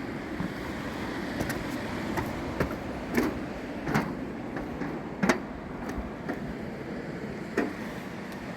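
Footsteps going down a steep path, irregular knocks and scuffs about once a second, over a steady rush of surf and wind.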